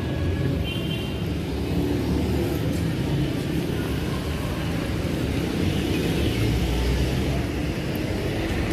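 Street traffic: the engines of cars and motorcycles running and passing, a steady din.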